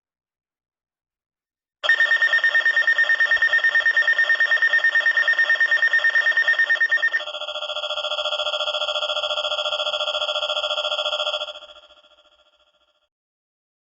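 Electronic weather-radio alert alarm: a loud, fast-warbling tone starts about two seconds in, switches to a different, lower pitch about seven seconds in, and fades out near the end. It signals an incoming weather alert.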